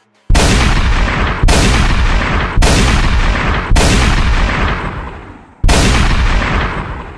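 Five loud impact hits used as a title-card sound effect. The first four come about a second apart and the last after a longer gap, each starting sharply with a deep low end and fading away over about a second.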